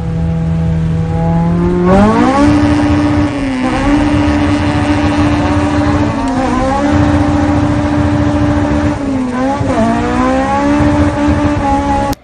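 Honda sports car's four-cylinder engine revving hard under acceleration: its pitch climbs over the first two seconds, then stays high and steady with brief dips about every three seconds.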